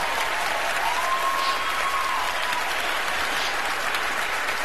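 Large audience applauding steadily, with a faint held whoop about a second in.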